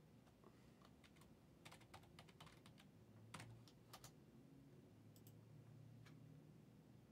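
Faint, irregular clicking of typing on a computer keyboard, with a quick run of keystrokes in the middle.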